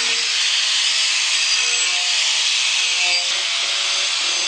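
DeWalt angle grinder with a carving disc grinding into oak, a steady, even hiss of abraded wood, with a slight dip about three seconds in.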